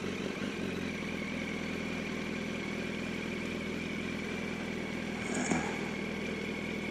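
Yamaha R1 inline-four engine running at low, steady revs while the bike rolls slowly over an icy street, with a thin steady high tone above it from about a second in.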